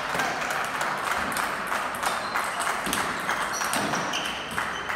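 Table tennis balls clicking off bats and tables in irregular, quick knocks during rallies, over the busy hum of a hall with several matches going on.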